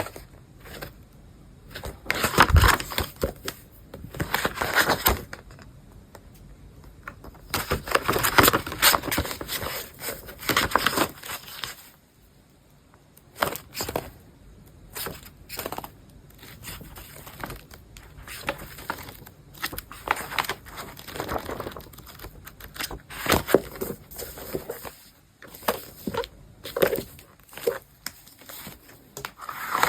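Packaging rustling, crinkling and tearing in bursts as a book is unwrapped and handled, with small clicks and knocks between.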